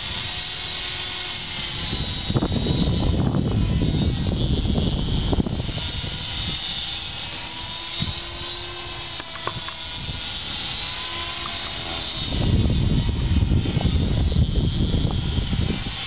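HK450 Pro 450-size electric RC helicopter in flight: a steady high whine from the electric motor and rotors that wavers slightly in pitch as it flies. A louder low rumble swells in twice.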